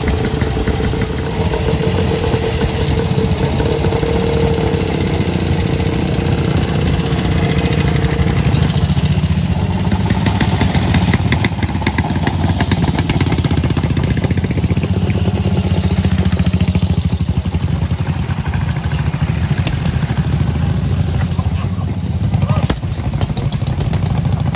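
Several vintage motorcycle engines running together, idling and pulling away as the bikes ride off one after another. A steady whine sits over them for about the first eight seconds.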